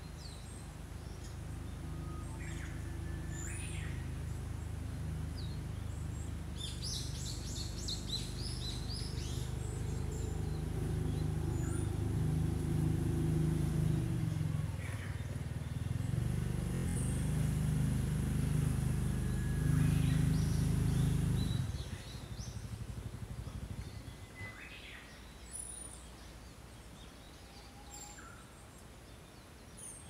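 Small songbirds chirping, with short scattered calls and a quick rapid trill about seven seconds in. Underneath runs a louder low mechanical hum that swells and then cuts off suddenly about two-thirds of the way through.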